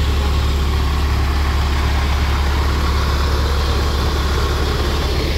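Rear-mounted diesel engine of an intercity coach idling steadily, a deep even hum.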